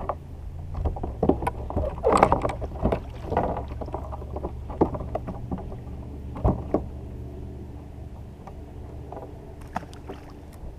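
Knocks, clatter and splashy noise of handling aboard a fishing kayak, busiest in the first few seconds and again about six seconds in, over a steady low hum.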